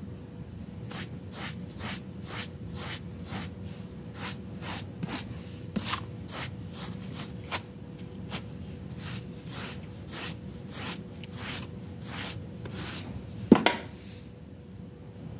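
Stiff scrub brush scrubbing a wet, foamy rug in quick brushing strokes, about two a second. Near the end there is one sharp loud knock, and then the scrubbing stops.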